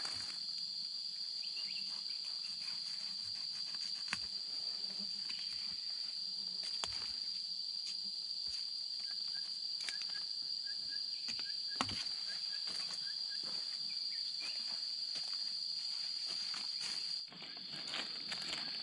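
Insect giving a steady high-pitched drone, cut off for about a second near the end, with occasional sharp knocks of digging and a few faint chirps.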